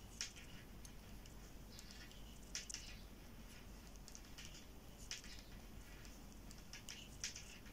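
Faint, irregular clicks of metal knitting needles tapping together as knit stitches are worked, roughly one click a second.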